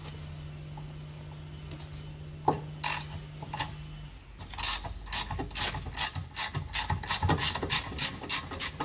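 Ratchet with a 7mm Allen key bit clicking as it winds out the lower guide bolt of a rear brake caliper: a few clicks, then from about halfway a fast, even run of about four to five clicks a second.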